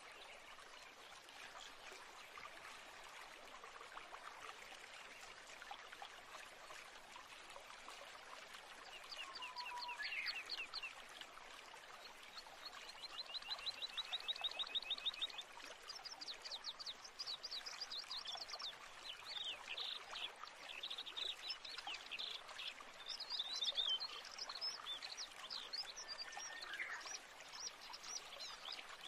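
Running water of a small stream with birds calling over it; from about a third of the way in come high chirps, a rapid trill of repeated notes, and more scattered chirps to the end.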